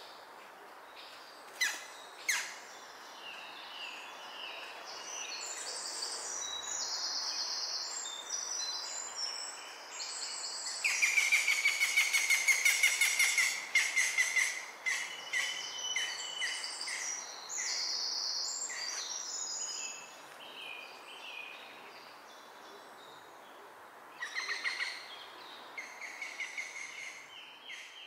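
Woodland birdsong from several birds calling over a steady outdoor hiss. About eleven seconds in comes a loud, fast run of repeated notes lasting about three seconds, and two sharp clicks come about two seconds in.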